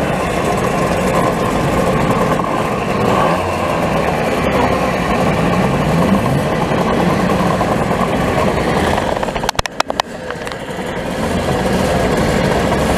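A group of vintage two-stroke mopeds running and revving as they pull away, with rising engine sweeps a few seconds in. A brief cluster of sharp clicks comes about ten seconds in.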